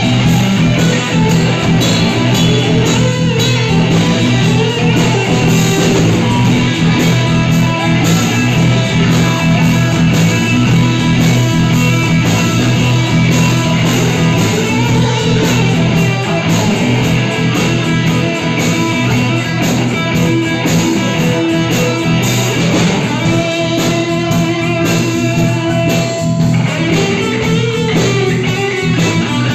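A rock band playing live and loud, electric guitar to the fore over drums, with notes bending up and down now and then.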